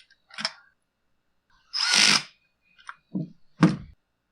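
Cordless power driver run in a few short bursts, snugging down the chainsaw's bolts. The longest burst comes about two seconds in.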